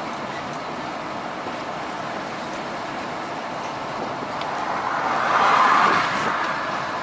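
Steady road and engine noise of a vehicle driving on a highway, heard from inside the cab. From about four and a half seconds in, a passing vehicle's noise swells, peaks around six seconds in and fades.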